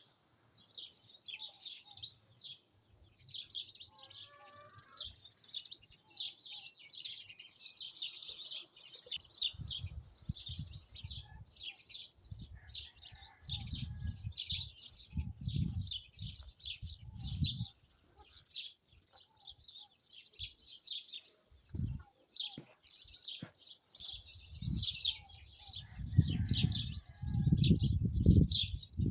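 Many small birds chirping and twittering continuously in rapid high-pitched calls. Gusts of wind rumble on the microphone from about a third of the way in, then again near the end.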